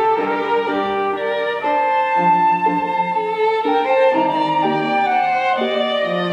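Flute and string quartet (two violins, viola, cello) playing a contemporary chamber piece together: several held notes at once, the chords shifting every second or so.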